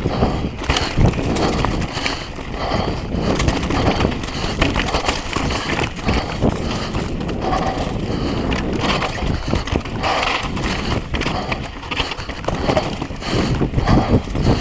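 Downhill mountain bike running fast over a rocky dirt trail: tyres crunching and rolling over rock and loose gravel, with constant rattling and knocking from the bike as it takes the bumps.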